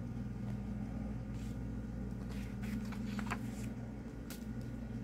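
Glossy booklet pages turned by hand, rustling in several short swishes a few seconds in and a crisp one near the end, over a steady low hum.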